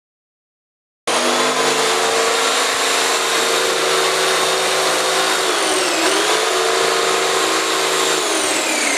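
Electric woodworking power tool running at full speed, its motor pitch dipping briefly around the middle as if loaded by the cut, then sliding down near the end as it winds down. It cuts in suddenly about a second in.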